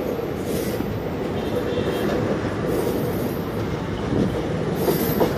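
Passenger train running, heard from inside the coach: a steady, even running noise from the moving train.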